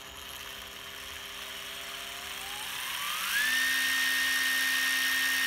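Used Makita cordless impact driver's motor running free with no load as the variable-speed trigger is squeezed: the whine starts slow and rises gradually in pitch, then jumps to full speed about three seconds in and holds steady. The speed control is working smoothly.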